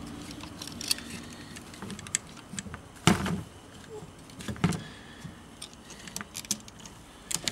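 Plastic and metal parts of a Polo's cable window regulator clicking and knocking as they are handled and fitted together by hand, with louder knocks about three seconds in, about four and a half seconds in, and near the end.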